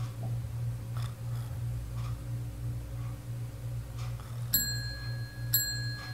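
A small shop door bell on a chain rings twice, about a second apart, each strike ringing on with a bright high tone, as a customer comes in. A low hum pulses steadily underneath.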